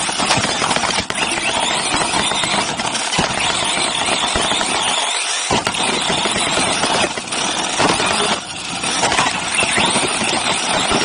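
Onboard sound of a Team Associated RC8B3.1 1/8-scale off-road buggy racing: a continuous loud rattle and rush of tyres on dirt, chassis and body vibration and wind over the camera, easing briefly about five seconds in.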